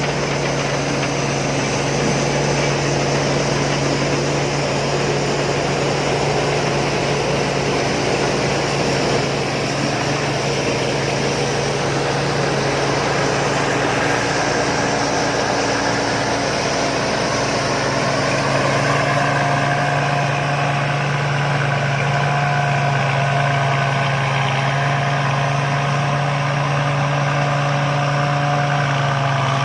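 Rice combine harvester running steadily, a constant engine hum under a busy mechanical noise. About two-thirds of the way in, a few higher steady whines from the machine become clearer.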